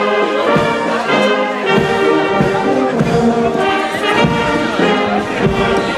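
A brass band playing a tune, with several brass instruments sounding together over a steady beat.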